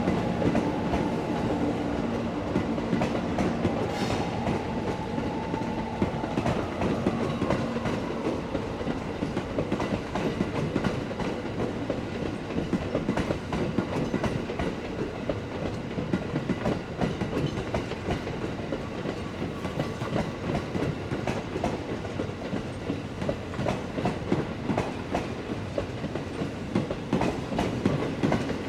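Train of E217 series passenger cars hauled by an EF64 electric locomotive rolling through the station, wheels clacking quickly and steadily over rail joints. A steady hum in the first few seconds fades out.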